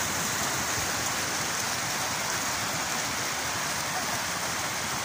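Fast, turbulent floodwater rushing, a steady, unbroken noise of churning water.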